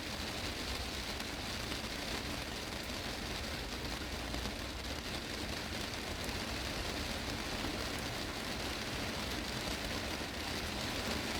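Heavy rain drumming steadily on a greenhouse's glass roof, heard from inside the greenhouse.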